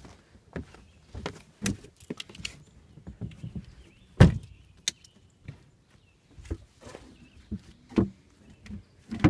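Irregular knocks, thumps and clicks from someone moving about the aluminum boat while handling the phone. The loudest thump comes about four seconds in.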